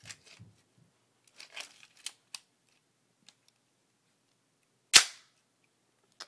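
Rubber-band-powered Lego bolt-action gun being worked: a few soft plastic clicks and rattles as the bolt is handled, then, about five seconds in, one sharp, loud snap as the mechanism is released.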